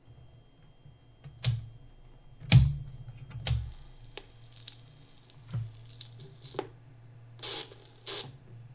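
A series of sharp clicks and knocks from a turntable being handled and set going, with two short scraping bursts near the end, over a faint steady low hum.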